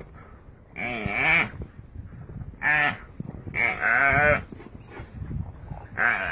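An antelope being bitten by a pack of wild dogs, bleating in distress: four loud, wavering bleats, each under a second long, with scuffling between them.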